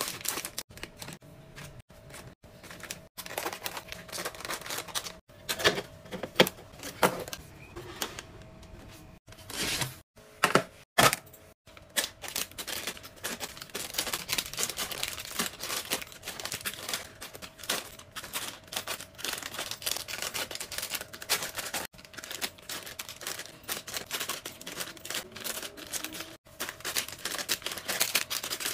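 Plastic-wrapped snack packs crinkling and clicking as they are set one after another into a plastic storage basket, with a few louder knocks in the first half.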